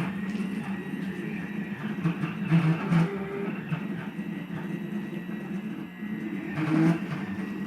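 Stepper motors of a DIY CNC router driving the axes: a steady machine hum with low tones that change pitch as the moves change, louder for a moment about two and a half seconds in and again near the end.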